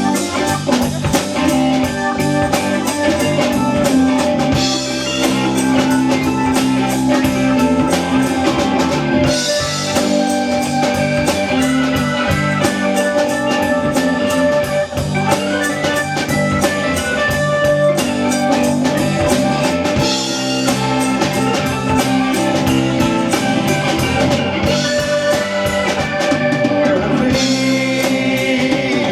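Live rock band playing an instrumental break, with guitar and drum kit keeping a steady beat.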